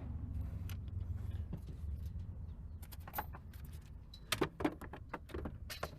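Scattered light clicks, knocks and rattles of tools and car parts being handled while a car is dismantled, with a few sharper knocks about four and a half seconds in, over a low steady rumble.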